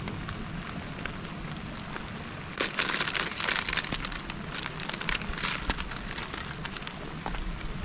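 Steady rain, with a plastic food packet crinkling loudly as it is handled and opened from about two and a half seconds in until about six seconds.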